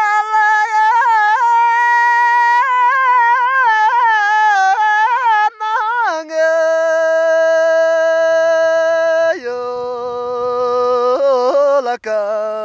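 A man singing unaccompanied in a high, carrying voice, in the manner of a Tibetan folk song. The first phrase has quick wavering ornaments; after that come long held notes that step down in pitch twice, with short breaths between phrases.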